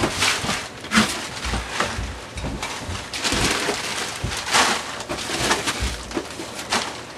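Plastic bags of frozen food crinkling and rustling as they are handled and pulled out of a chest freezer, with a few dull thumps.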